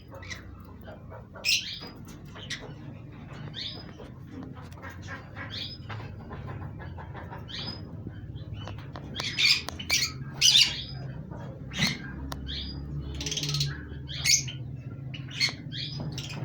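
Pet lovebirds chirping in quick, short, high-pitched calls repeated many times, with a few louder, harsher squawks past the middle.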